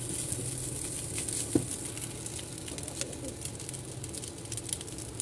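A spatula stirring and scraping vegetable fried rice in a non-stick pan, with a light sizzle, many small clicks and one sharper knock about a second and a half in. A steady low hum runs underneath.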